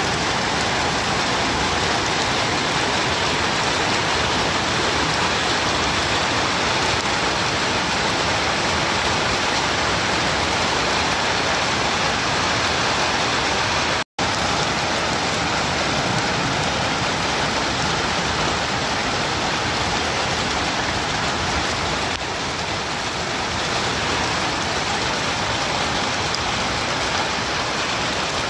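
Heavy rain mixed with hail pelting down, a dense steady hiss. The sound cuts out for an instant about halfway through.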